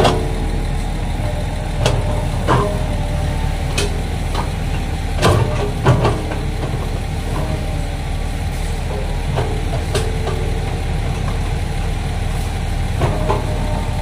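Sany SY215C excavator's diesel engine running steadily as the excavator digs wet earth, with sharp metal clanks from the bucket and its linkage several times and a thin whine that comes and goes.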